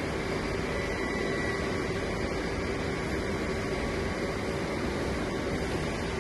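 Fiber laser marking machine running: a steady, even fan-like hum with a low steady tone.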